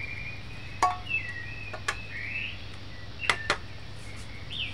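Birds chirping in the background with short rising and falling calls, over a low steady hum, broken by a few sharp clicks and clinks of a metal can against a glass measuring cup and the countertop as coconut milk is poured and the can is set down.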